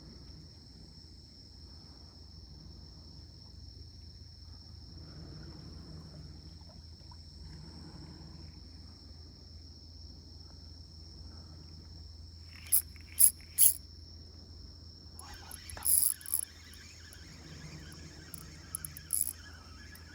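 A steady high-pitched insect trill over a low rumble, broken in the second half by a few sharp knocks and clicks: three close together, then more near the end.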